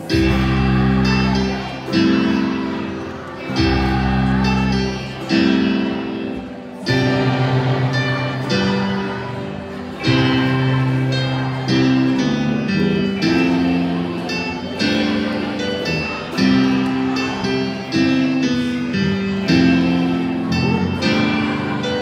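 Strummed acoustic guitar chords in a steady rhythm, a new strum about every one and a half to two seconds, with a children's choir singing along, echoing in a large gym.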